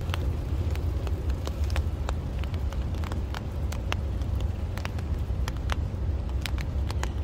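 Raindrops from a passing sun shower tapping irregularly on a tarp overhead, a few sharp ticks a second, over a steady low rumble.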